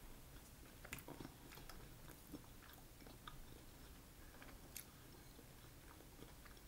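Faint chewing, with a few soft mouth clicks now and then.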